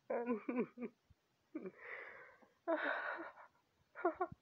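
A person's wordless vocal sounds: a few short voiced noises, then two long breathy exhalations like sighs, then two more short voiced noises near the end.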